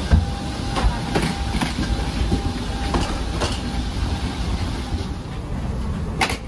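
Carry-on suitcase wheels rumbling along a jet bridge floor, with sharp clacks every so often as the wheels cross floor joints. The loudest clack comes near the end, as the bag rolls over the threshold into the gate area.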